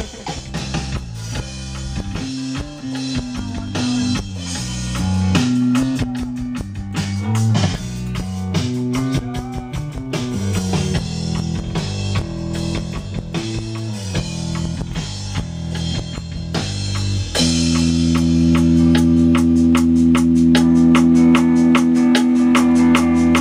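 Rock song played by a band: drum kit keeping a steady beat with guitar and a moving bass line. About 17 seconds in, the band settles onto a held chord while the drums keep hitting.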